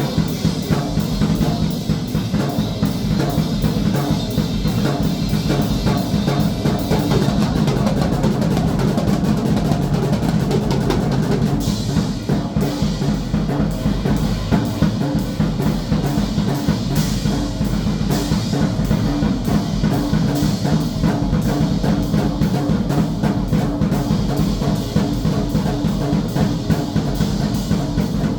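Drum kit played without a break: kick, snare and cymbals in dense, fast strokes.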